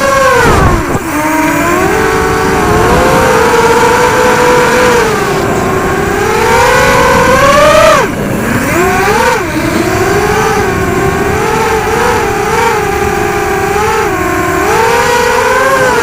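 Brushless motors and propellers of a 250-size racing quadcopter on a 4S battery, whining steadily in flight, the pitch rising and falling with every throttle change. The pitch drops sharply about a second in and again about eight seconds in, then climbs back.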